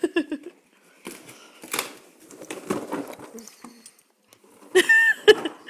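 Old English Sheepdog chewing and scraping at a taped cardboard box, crackly cardboard noises in short spells. Near the end, a couple of short high-pitched whines from the dog.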